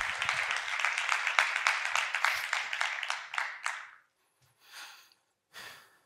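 Audience applauding, the claps thinning and dying out about four seconds in, followed by two brief soft noises near the end.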